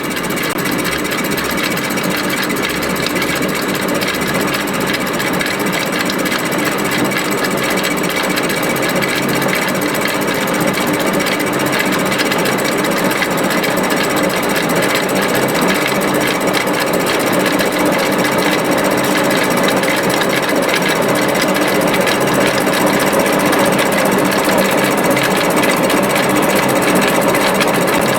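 A machine running steadily and loudly, with a dense, fast, even ticking over a steady hum.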